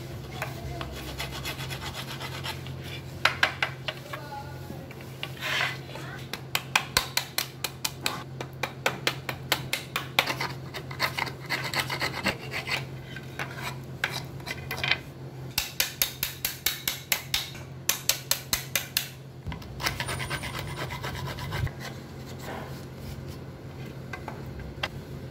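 A hand-pushed wood chisel paring and scraping the bottom of a lap joint in pallet wood, in runs of quick short strokes at about four or five a second. Near the end this gives way to sandpaper rubbing back and forth on the wood.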